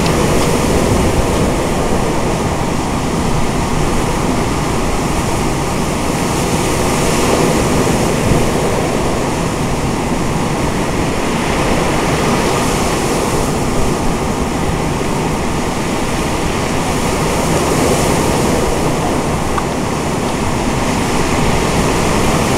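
Rough sea surf breaking and washing up a pebble beach, a steady roar that swells every few seconds, with strong wind rumbling on the microphone.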